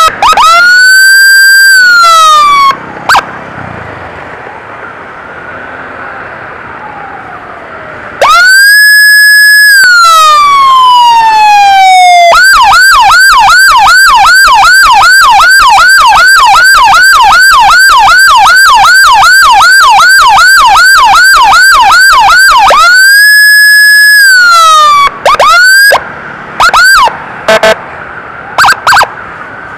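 Very loud electronic emergency siren of an ambulance escort, clearing traffic: a long wail that rises, holds and falls, a few seconds' pause, another long wail, then a fast yelp of about two and a half sweeps a second for some ten seconds, one more wail, and short chirps near the end.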